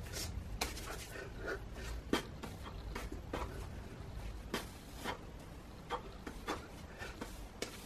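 A run of irregular sharp clicks and knocks, about a dozen, over a low steady rumble.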